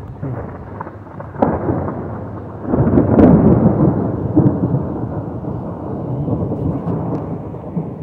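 Thunder rolling: a low rumble with a sudden jump about a second and a half in, loudest about three seconds in, then rumbling on and slowly fading.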